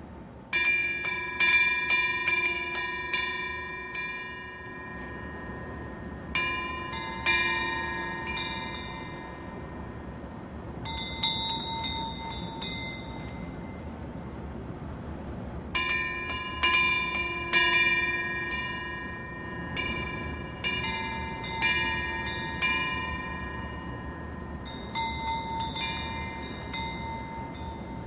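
Korean temple wind bells (pungyeong), small metal bells hung from the eaves, ringing as the wind swings their clappers. They come in clusters of several quick strikes every few seconds, each strike leaving clear tones that ring on and fade, over a steady background rush.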